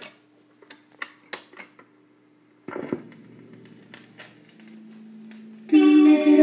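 1954 RCA HY-4 45 rpm record changer cycling between records. After the song stops there are several sharp mechanism clicks, then a clunk a little under three seconds in as the next 45 drops from the stack onto the platter. A low hum follows until the next record's music starts near the end.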